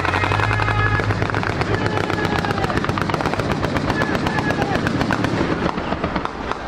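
Rapid small-arms gunfire, many overlapping shots a second, from soldiers firing blanks. A steady engine hum from an armoured vehicle runs under it for about the first second and a half.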